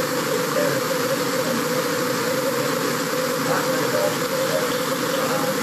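Audio of underwater camera footage from a fishing line: a steady rush of water noise with a constant hum running under it.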